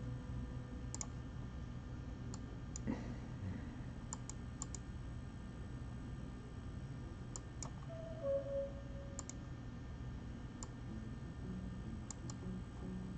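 Sparse computer mouse clicks, several in quick pairs, over a low steady room hum. A soft knock comes about three seconds in, and a short two-note tone, falling slightly in pitch, comes around eight seconds.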